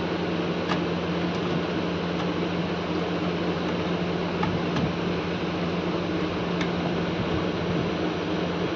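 Steady background hum and hiss, like a running fan, with a few faint clicks as a screwdriver works the terminal screws of a switch-mode power supply.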